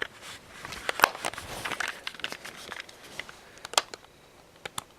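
Scattered sharp clicks and light crinkly plastic handling noise from a Logitech wireless mouse being handled and clicked while it is tried out.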